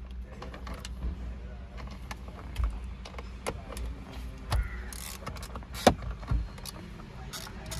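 Scattered clicks and taps of a T30 Torx bit turning in the steering-wheel airbag-pad bolts as they are loosened, with one louder knock about six seconds in, over a steady low hum.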